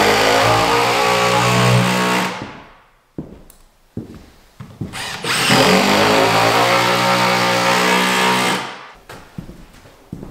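Power drill driving screws in two long runs of a few seconds each, the motor spinning up and then winding down each time. Short knocks fall in the pause between the runs.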